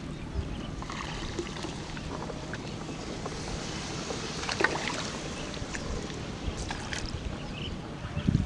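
Wooden paddle dipping and pulling through shallow water beside a small wooden boat, with water splashing and scattered clicks and knocks, the loudest thumps near the end. Wind rumbles on the microphone throughout.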